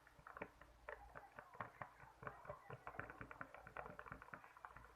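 Glue and liquid detergent being stirred together with a stirrer in a container to make slime: faint, quick, irregular clicks and taps of the stirrer against the container and the sticky mix.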